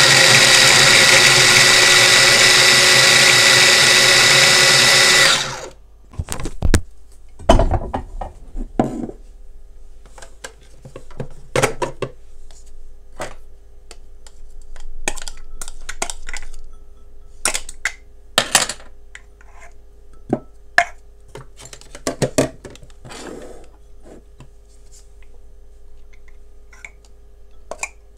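Electric kitchen appliance motor running at high speed, switched off about five seconds in, followed by scattered clicks and knocks of kitchen utensils and containers being handled.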